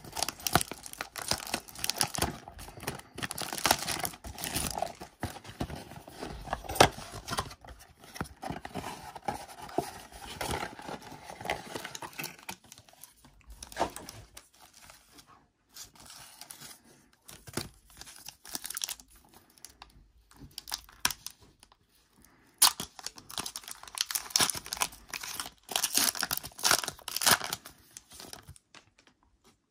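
Plastic shrink wrap crinkling and tearing as it is stripped off a cardboard card box. Lighter rustling and clicks of foil card packs being handled follow in the middle. Near the end, a dense spell of crinkling as a foil trading-card pack is torn open.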